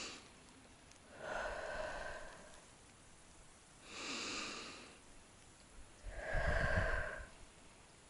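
A person's slow, deep breathing: long inhales and exhales alternating, with two full exhales, about a second and a half in and near the end. The last exhale carries a low rumble.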